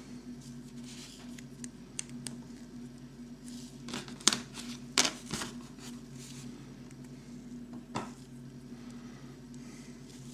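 Small plastic toy parts of a Kinder Surprise Christmas-tree figure being handled and pressed together, with a few sharp clicks, the loudest about four and five seconds in, over a steady low hum.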